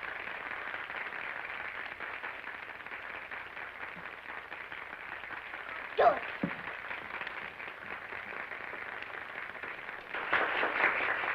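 Steady hiss of an old film soundtrack, broken by one short sharp crack about six seconds in. A louder stretch of noise comes in near the end.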